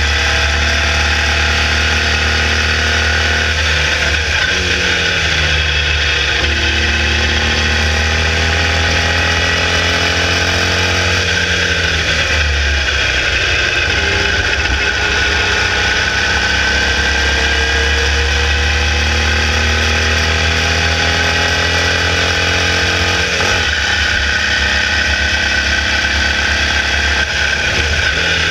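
Formula Vee's 1200cc air-cooled VW flat-four engine at racing revs, heard onboard; the engine note drops and climbs back up about three times as the car brakes and downshifts for corners and accelerates out again.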